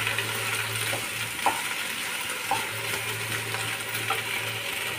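Chopped okra sizzling steadily in hot mustard oil over a medium flame while being stirred, with a few short scrapes of the wooden spatula against the pan.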